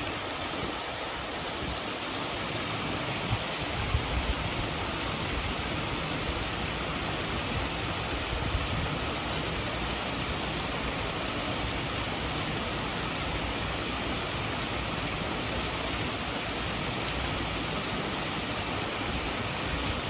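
Small rock waterfall splashing steadily into a pond, an even rushing of water.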